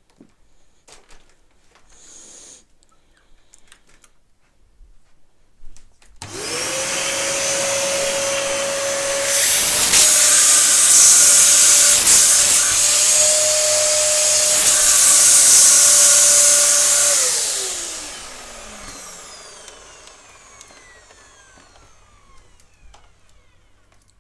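Dyson upright vacuum cleaner switched on about six seconds in: the motor spins up into a steady high whine and then gets louder for several seconds. It is switched off and the motor winds down with a falling whine that fades over a few seconds.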